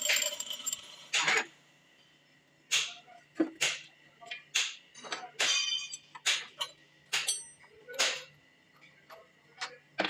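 Irregular sharp metallic clinks and knocks, about a dozen, some ringing briefly, as metal parts and tools are handled and set down.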